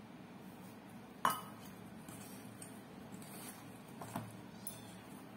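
Stainless steel mixing bowl clinking as a hand mixes cauliflower with flour and spices inside it. There is a sharp clink about a second in, and fainter knocks about four seconds in.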